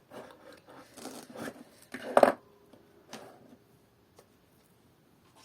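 Rustling, scraping handling noises of craft materials being worked by hand, with a sharp knock about two seconds in.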